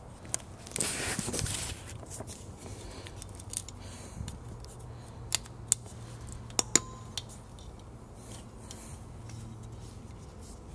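Small metal handling sounds of a steel retaining spring clip being worked onto the back of a disc brake pad: a short scrape about a second in, then a few sharp clicks as it is pressed and snapped into place about halfway through.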